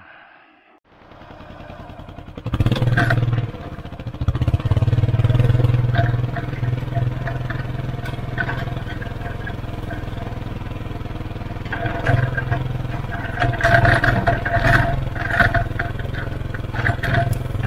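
Polaris Ranger 570 UTV engine running under load as it drags a box blade with its spikes down through dirt and sticks, with knocks and rattles from the blade and its tines. The engine noise builds over the first two seconds, then runs steadily.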